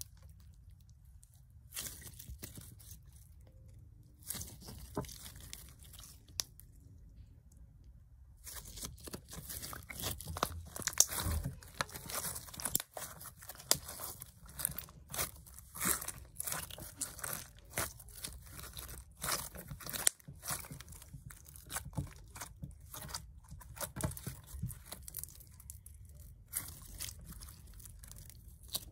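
Hands squeezing and kneading a thick blue slime, which gives irregular sticky crackles and pops. They come only now and then at first and grow thick and fast from about eight seconds in.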